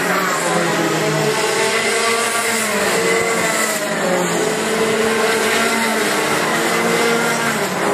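Racing kart engines, more than one at once, running at high revs on the circuit, their pitch rising and falling as the karts accelerate and lift off through the corners.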